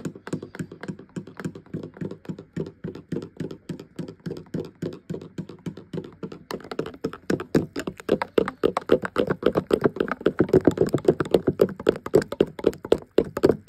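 A spoon stirring a protein shake in a cup, clicking against the side in a quick, even rhythm several times a second. The clicking gets louder about six and a half seconds in.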